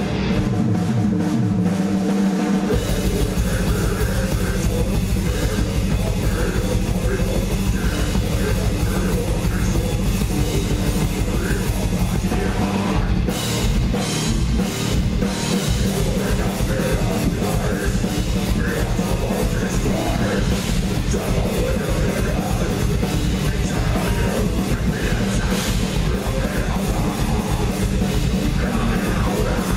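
Heavy metal band playing live: distorted guitars, bass and a drum kit. The full band with fast drumming comes in about two and a half seconds in, with a few short stop-start breaks around the middle.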